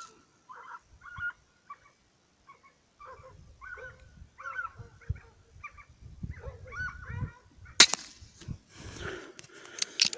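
Single sharp crack of a PCP air rifle shot about eight seconds in, with a few further sharp clicks near the end. Before and around it a bird calls over and over in short harsh calls, several a second.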